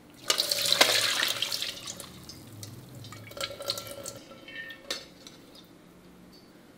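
Golden cooking liquid from a pan of dried red chillies and onions poured through a steel mesh strainer into an aluminium pressure cooker, splashing loudly for about a second and a half, then trickling and dripping. A few light metallic clicks follow as the strainer knocks the pot, near the middle.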